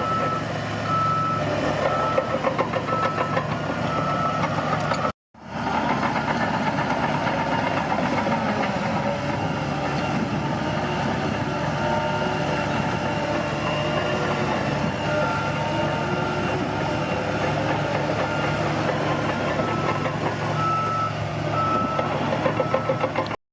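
Heavy bulldozer diesel engine running under load while its backup alarm beeps about once a second, in repeated runs as the dozer reverses. The sound cuts out briefly about five seconds in.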